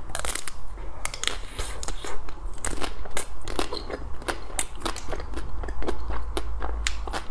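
A bite through the frozen chocolate shell of a chocolate-coated ice cream bar, cracking loudest right at the start, then chewing with many irregular crisp crackles as the shell breaks up.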